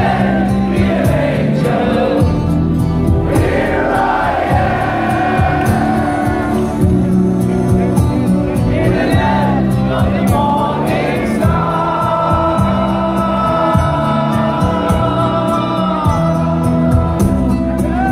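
Rock band playing a slow power ballad live through a big PA, the lead singer's voice over the band with the crowd singing along, loud through a phone's microphone in the audience.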